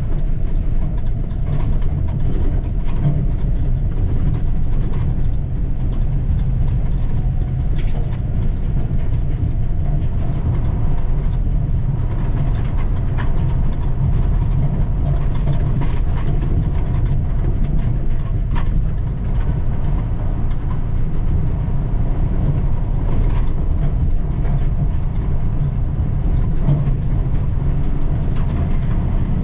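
Cummins diesel engine of a 2010 International 7600 log truck running steadily while the truck drives, with frequent clatter and rattles from the truck.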